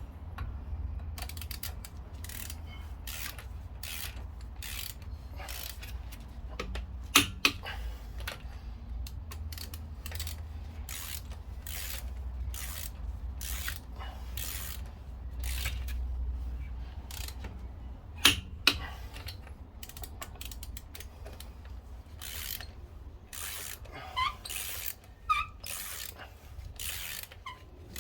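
Ratchet wrench clicking in short runs of uneven clicks as bolts are turned, over a steady low rumble.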